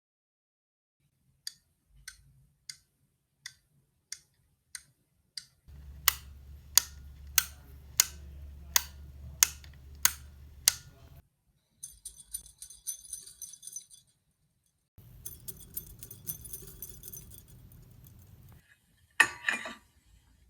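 Foley sound effects: a run of seven light, evenly spaced taps, then about nine louder taps at the same pace over a low hum, followed by two stretches of metallic jingling and a single sharp clatter near the end.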